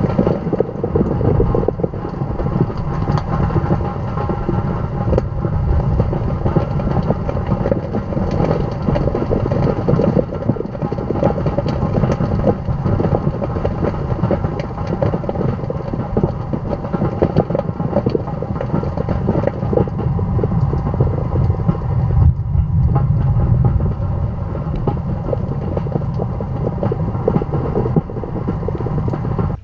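Violent tornadic wind and heavy rain buffeting a storm-chasing vehicle, heard from inside the cabin: a constant deep, rumbling rush with many sharp clicks and knocks from rain and debris striking the windshield and body.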